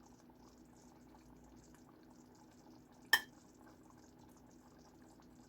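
Quiet kitchen with a faint steady hum, broken about three seconds in by a single sharp clink of cookware.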